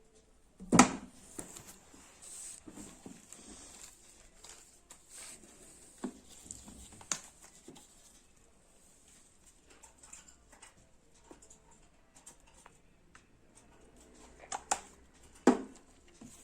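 Homemade shaving-foam slime being worked by hand in its container: scattered soft sticky clicks and squelches, with a sharper knock about a second in and another near the end.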